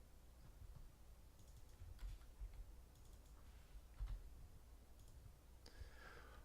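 Faint, scattered clicks of computer input, a mouse and keyboard being worked, over a low room hum.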